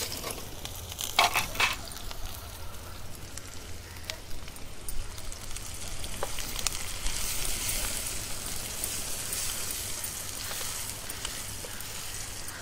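Chopped onion frying in hot oil in an iron kadhai: a steady sizzle that grows a little stronger partway through. A spatula knocks a couple of times against the pan about a second in and scrapes through the onion as it is stirred.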